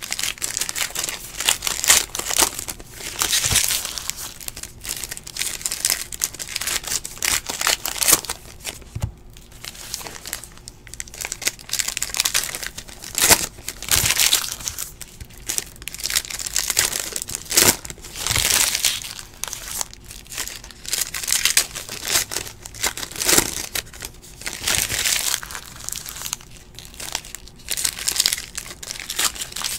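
Plastic wrappers on sports card packs crinkling and tearing as they are opened by hand: a continuous run of irregular crackles, with louder tears every few seconds.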